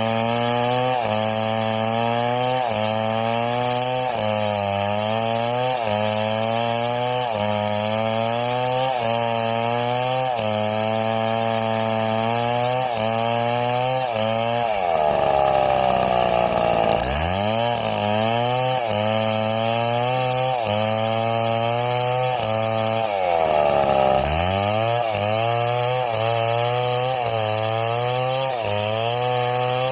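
Chainsaw cutting wood, its engine pitch wavering about once a second as it loads and unloads in the cut. About halfway through, and again near three-quarters, it revs high, drops to a low idle, then revs back up into the cut.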